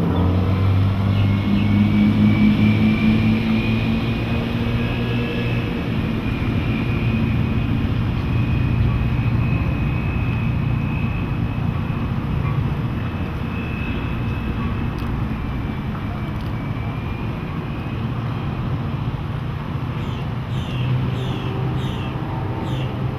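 The 220 hp MerCruiser 5.0L V8 sterndrive of a Bayliner 215 bowrider running under way. It makes a steady drone with a faint high whine above it, over a hiss of wind and water. A few short, falling chirps come near the end.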